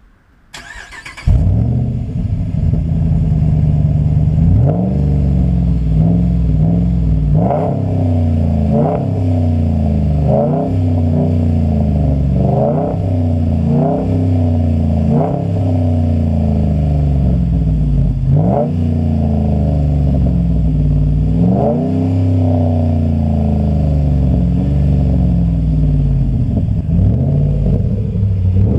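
Dodge Ram's 5.7-litre Hemi V8 on its stock exhaust starting up: a brief crank, then it catches about a second in and settles to idle. It is then revved in a string of short blips, each rising and falling back to idle, and runs at a steady idle for the last few seconds.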